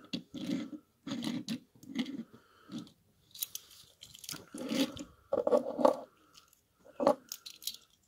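Handling noise: a rapid run of short rustles, scrapes and light knocks as small die-cast toy cars are moved about by hand on a wooden table.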